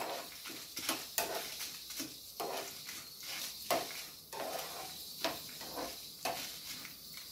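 Steel spoon stirring and scraping dals and dried red chillies in a small nonstick frying pan, in short strokes about twice a second, over a faint sizzle of the hot coconut oil.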